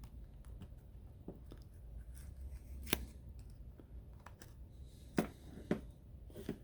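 Scattered light clicks and taps of small repair tools working on a smartphone's frame and screen, the sharpest about three seconds in and two more a little after five seconds.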